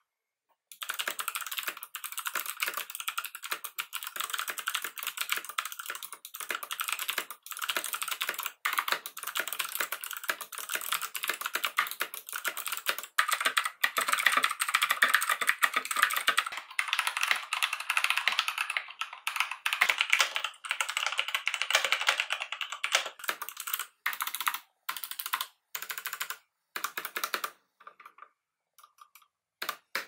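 Fast typing on clicky mechanical keyboards: a Rakk Lam-Ang Pro with Kailh Bronze Speed switches, which click on both press and release, and a Geek GK64 with Gateron Blue switches. The typing begins about a second in, and near the end it thins out to a few separate key presses.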